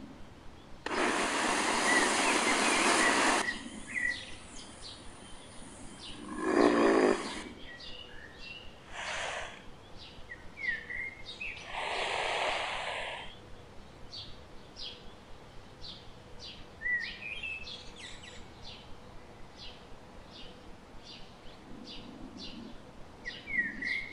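Cartoon dinosaur breathing and snoring: several long breathy snorts, one with a pulsing rattle about six seconds in. Behind them runs a nature bed of regular short ticking chirps and a few bird chirps.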